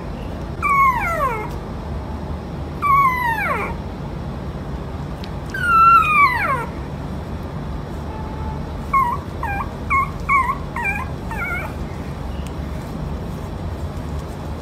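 Puppy whimpering in its sleep: three long whines, each falling in pitch, then a quick string of short yips.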